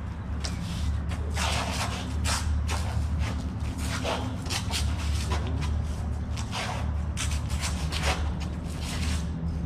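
Irregular knocks, scuffs and shuffling footsteps of two people sparring with a bolo and a barung, over a steady low rumble.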